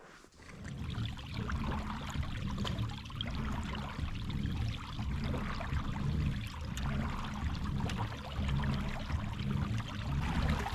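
Water rushing and splashing along the hull of a moving kayak, a steady rough hiss over an uneven low rumble.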